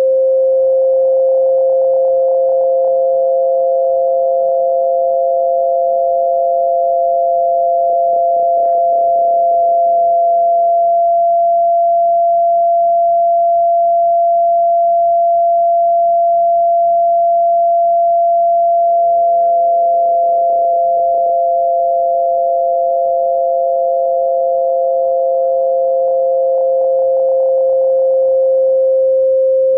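Two steady, electronically generated sine tones for tinnitus masking, a lower and a slightly higher one held together over a faint hiss. The lower tone fades out about a third of the way in and fades back in about two-thirds in; the higher tone stops just before the end.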